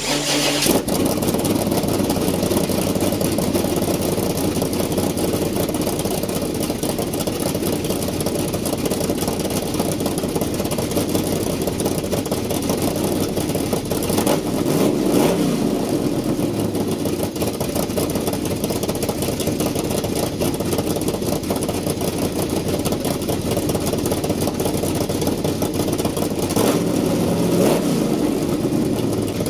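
Chevrolet 454 big-block V8 in a C10 pickup coming to life right at the start, then idling steadily, revved up and back down once about halfway through and again near the end.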